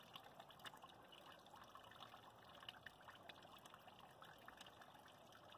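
Near silence: a faint, even hiss with a few soft ticks scattered through it.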